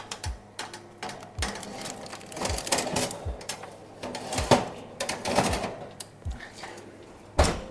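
Irregular clatter of kitchen utensils and cookware: a run of sharp clicks and knocks with some scraping, a louder knock near the end.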